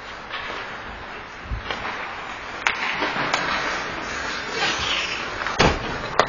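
Ice hockey play: skate blades scraping and carving the ice in a steady hiss, with sharp clacks of sticks and puck, one nearly three seconds in and another at the very end, and a heavier thump shortly before the last clack.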